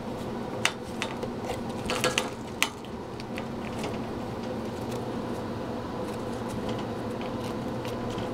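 Steady mechanical hum, with a few sharp clicks and light taps in the first few seconds as kittens paw at the wire cage bars and cardboard lining.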